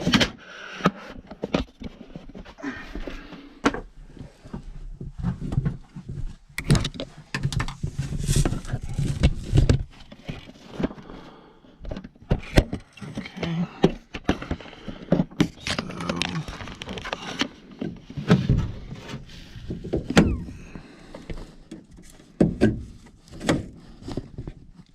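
Irregular knocks, thunks and clatter of hand work on an air handler's condensate drain line while it is being re-pitched to drain properly.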